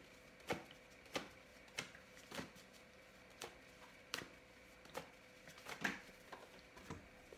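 A deck of tarot cards being shuffled by hand, with soft, sharp card slaps and clicks about one every half second to a second.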